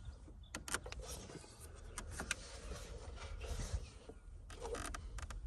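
Engine oil filler cap being unscrewed by hand under the hood: faint rubbing and scraping with scattered small clicks.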